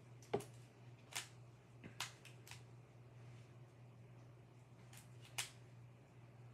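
QiYi 3x3 puzzle cube being scrambled: a handful of sharp plastic clicks at uneven intervals as its layers are twisted, the loudest about a third of a second in, over a faint steady low hum.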